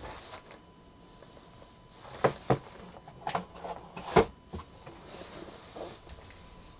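Trading card packs and cards being handled: a handful of sharp clicks and taps, the loudest about two and four seconds in, with soft rustling between them.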